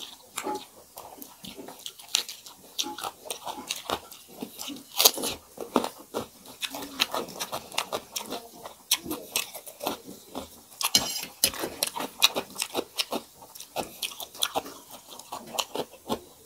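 Close-miked eating by two people: chewing and biting with many short wet smacks and clicks, as rice mixed with dal and fried bitter gourd is eaten by hand.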